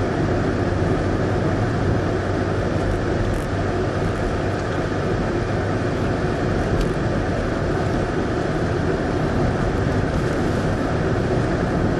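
Car running along a road, heard from inside the cabin: steady engine hum and road and tyre noise.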